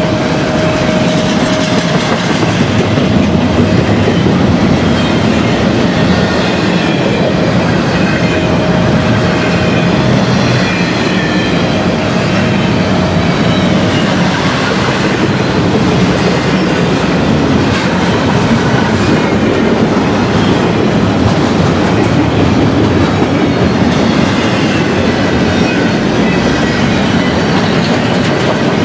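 Double-stack intermodal freight train passing close by: a steady, loud rolling noise of steel wheels on the rails, with thin squealing tones from the wheels coming and going.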